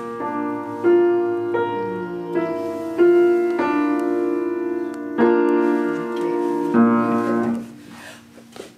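Upright piano played slowly, single notes and chords struck one after another and left to ring; the playing stops about seven and a half seconds in.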